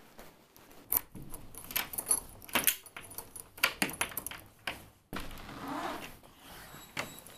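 A bunch of keys jangling in a run of sharp clicks, with a key being worked in an old door lock.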